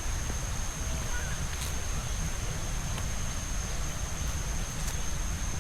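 Outdoor garden ambience: wind buffeting the microphone, a steady high-pitched whine, and a couple of faint bird chirps.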